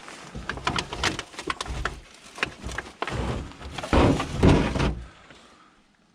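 Handling noise from an object being pulled and worked at to see how a part is fixed on: irregular knocks, clicks and scraping, loudest about four seconds in, stopping about five seconds in.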